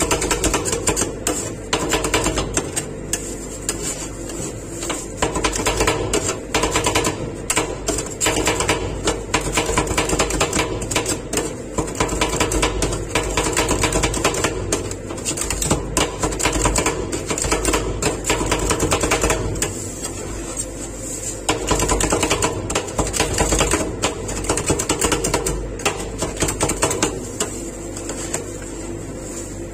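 Flat metal spatulas chopping and mashing ice cream mix with wheat crispies on the steel cold plate of a rolled-ice-cream machine: rapid, irregular metal-on-metal tapping over a steady hum, easing off briefly past the middle.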